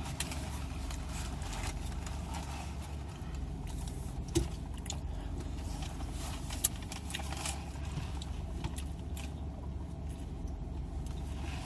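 Eating sounds: chewing, with scattered soft clicks and rustles of food and packaging being handled, over a steady low hum.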